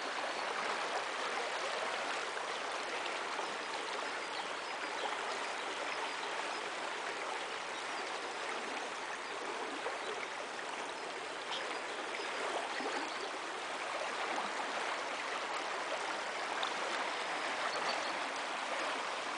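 Shallow river water rushing over a stony riffle: a steady, even rushing sound.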